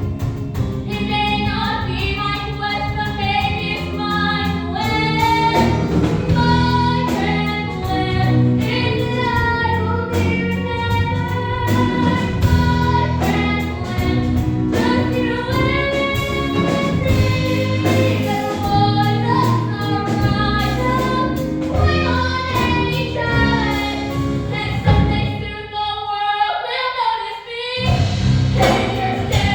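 A teenage girl singing a musical-theatre song with instrumental accompaniment. Near the end the accompaniment drops away briefly, leaving the voice nearly alone before it comes back in.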